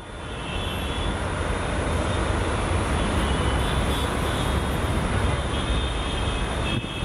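Tista Express passenger train running past, a steady heavy rumble of wheels on rails that fades in over the first second.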